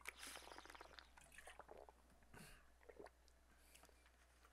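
Faint sounds of a man drinking water from a bottle, with sips and swallows picked up close by a headset microphone.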